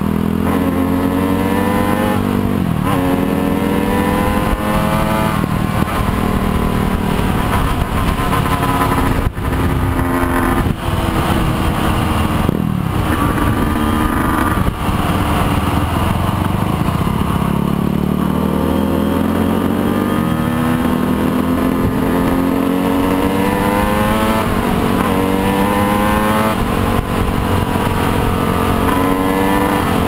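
Motorcycle engine under way, accelerating through the gears: its pitch climbs, drops back at each shift and climbs again, over and over.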